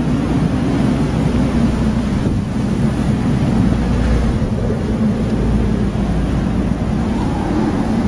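Blizzard wind blowing hard against the microphone: a loud, steady low rumble.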